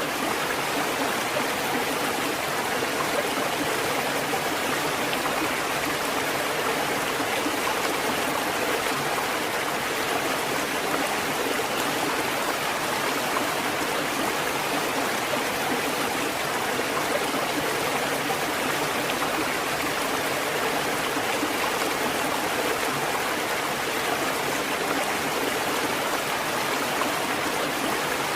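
Water fountain running: a steady, unbroken rush of flowing water.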